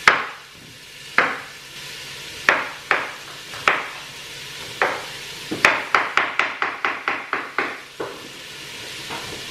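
Kitchen knife chopping a courgette on a wooden chopping board: single cuts about a second apart, then a quick run of about a dozen chops, some six a second, a little after halfway. Under it, the faint sizzle of onion, celery and carrot frying in a pan.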